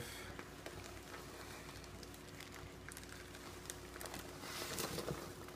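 Light crackling and rustling of a plastic fish shipping bag being handled, loudest about four and a half to five seconds in, over a faint steady hum.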